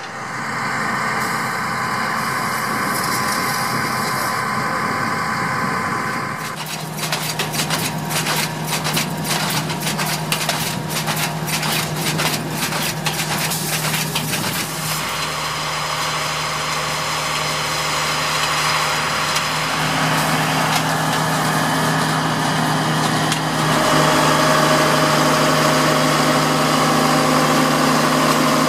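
Engine of a converted Agrifac ZA-215 self-propelled beet harvester running steadily as it plants celeriac with a 12-row Ferrari Futura automatic planter and a power harrow. A fast clicking rattle runs for several seconds in the middle, and the machine sounds louder near the end.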